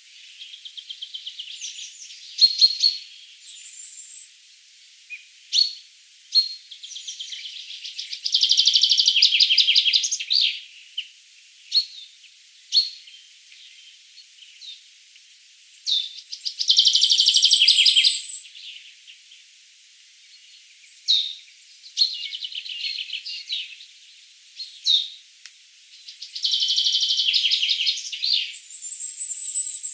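Songbirds calling: short sharp high chirps every few seconds, with rapid high trills of one to two seconds that come three times.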